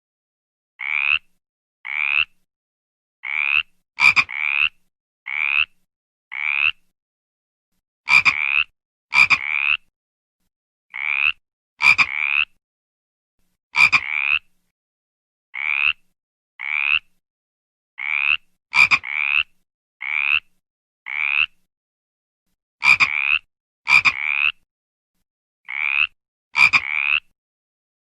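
Frog calling: short calls of about half a second each, repeated roughly once a second and sometimes in quick pairs, a few of them opening with a sharp click. The gaps between calls are dead silent.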